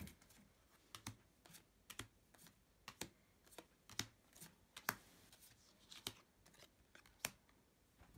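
Light clicks and taps of trading cards being handled: picked up, shuffled and laid down on a table, at irregular intervals, the loudest a little under five seconds in.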